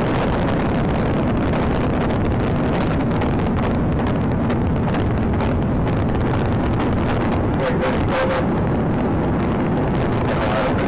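Steady road and wind noise of a police patrol car running at about 90 to 100 mph, heard from inside the car.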